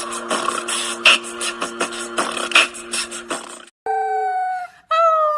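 Music with a steady beat that cuts off about three and a half seconds in, followed by two long, held animal calls, one after the other.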